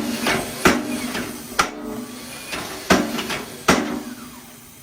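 Home-built cam-driven da Vinci-style power hammer striking hot metal on its anvil: five heavy, irregularly spaced blows with a low metallic ring, and lighter knocks between them.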